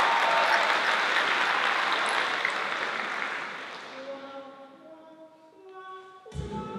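Audience applause fading away, then soft held sung notes entering one after another as the a cappella group builds a chord. Shortly before the end the group's singing comes in with a sudden deep, low entry.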